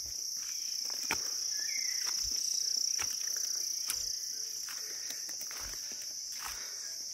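A steady, high-pitched drone of insects in tropical forest, with footsteps thudding and crunching on dry leaf litter every second or so.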